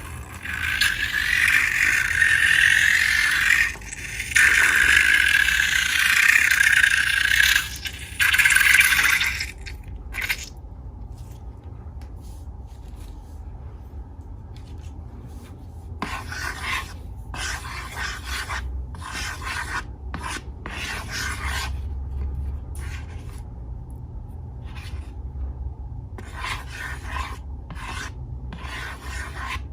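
Slime and balloon material being rubbed and scraped by hand. It is a loud continuous rough rubbing for about the first nine seconds, then quieter short strokes with pauses between them.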